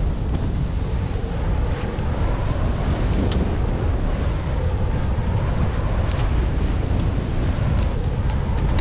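Rushing wind buffeting the microphone of a skier's body-mounted camera during a fast descent through deep powder, a steady low rumble with the hiss of skis through the snow. There are a few light ticks, about three.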